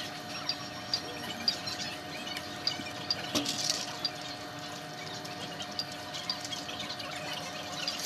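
Steady store hum with plastic product packaging rustling and crinkling as it is handled, most clearly about three and a half seconds in, under faint short high chirps repeating roughly twice a second.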